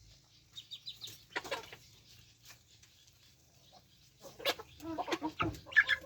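Free-range kienyeji chickens clucking, a few short calls early on and a busier run of louder clucks from about four seconds in.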